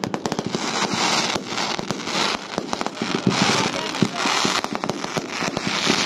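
Aerial fireworks bursting overhead: a dense, irregular run of sharp bangs and crackling.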